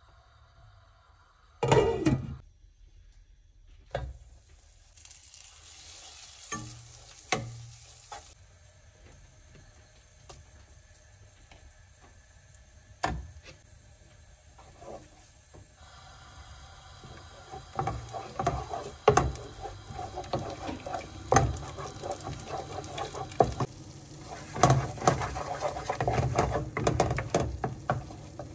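Tomato paste frying in melted butter, a wooden spatula scraping and stirring it around a frying pan over a light sizzle. The stirring strokes come thick and fast in the second half. A single loud knock sounds about two seconds in.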